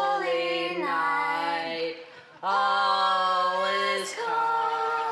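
Women singing a cappella in long held notes, the pitch stepping down about a second in. After a brief break about two seconds in, two more held notes follow.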